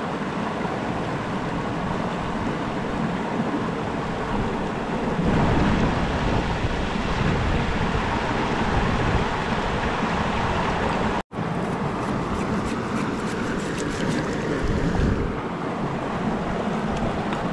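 Shallow mountain river running over stones, a steady rushing wash, with some splashing of hands rinsing a fish in the water. The sound cuts out for an instant about eleven seconds in.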